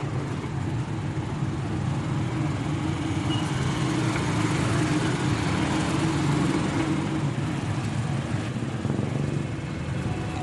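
Street traffic, mostly motorbikes with some cars, passing in a steady stream and swelling a little in the middle.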